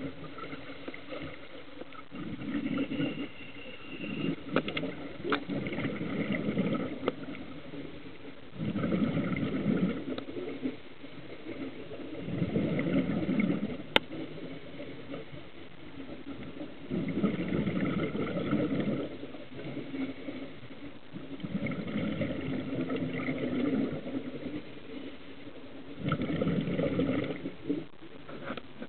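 A scuba diver breathing through a regulator underwater, heard from close by: exhaled air bubbles out in a burst of a second or two about every four seconds, with a single sharp click about halfway through.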